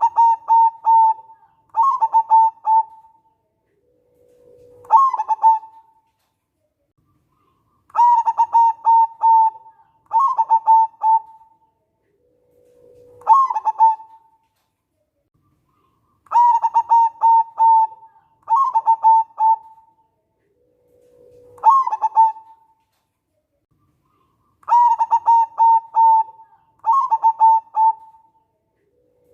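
Zebra dove (local perkutut) singing its cooing song. Each phrase is two quick trilled coos followed by a low note that jumps up, and the phrase repeats about every eight seconds, three times over.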